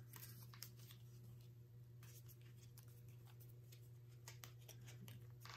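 Near silence: a steady low hum with a few faint, short clicks and rustles of small toy-kit parts being handled.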